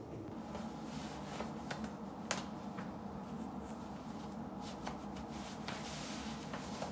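Rustling of clothing as knit leg warmers are pulled on over tights, with a scatter of small sharp clicks and taps, the loudest about two seconds in, over a low steady hum.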